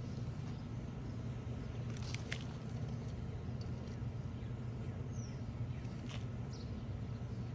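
A steady low hum, with a few soft ticks and scrapes of hands digging through soil in a bucket of potatoes, and a brief high chirp about five seconds in.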